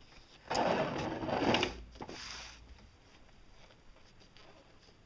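A long white pipe scraping and sliding against the boat deck as it is dragged up, one loud scrape of about a second and a half that tails off, followed by a few faint knocks.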